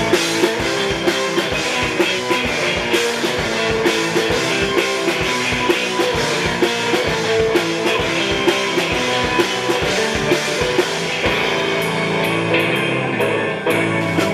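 Instrumental break of a live blues-rock band with no singing: drum kit keeping a steady beat under electric guitar and canjo.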